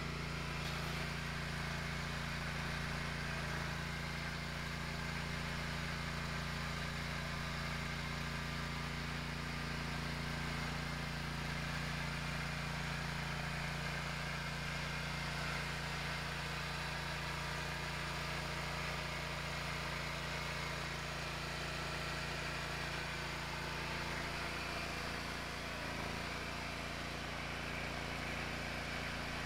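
Hustler zero-turn riding mower's engine running steadily at low speed, an even low-pitched drone with no change in revs.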